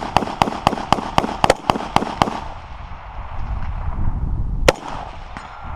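Gunfire at a shooting range: a rapid string of shots, about four a second, that stops a little over two seconds in, followed by one single shot near the end.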